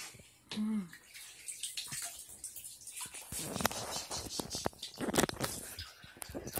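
Bathwater splashing and sloshing in a bathtub, with many small knocks and clicks.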